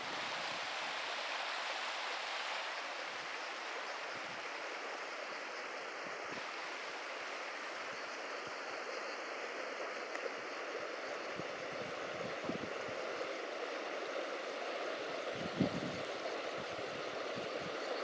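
Mountain stream rushing over rocks, a steady rush of water, with a few low thumps in the second half.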